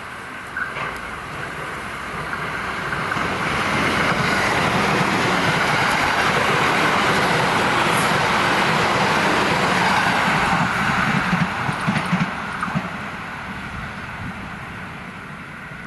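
Electric commuter train passing close by. Its wheel and rail noise swells over a few seconds, holds loud while the cars go past, and gives a few sharp clacks near the end of the pass before fading away.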